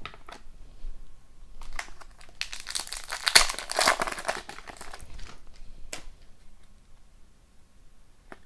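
Foil wrapper of a hockey card pack crinkling and tearing as it is opened, with light clicks of cards being handled; the crinkling is busiest a few seconds in and thins out after about five seconds.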